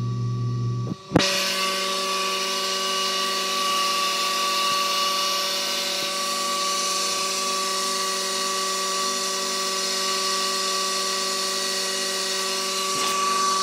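Pool pump motor running with a loud, steady high-pitched whine and grinding from bad bearings. About a second in the sound drops out briefly and there is a sharp click, then the whine runs on steadily.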